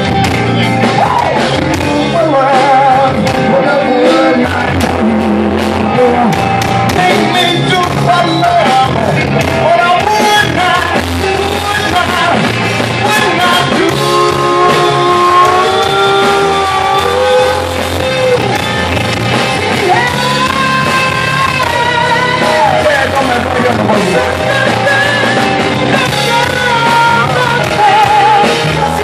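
Live blues-rock band playing loudly: electric guitar, drums and keyboard, with a man singing held, wavering notes over the band.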